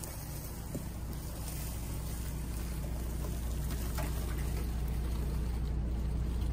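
Car engine running at low speed as the car reverses toward a trailer hitch, growing steadily louder as it comes closer.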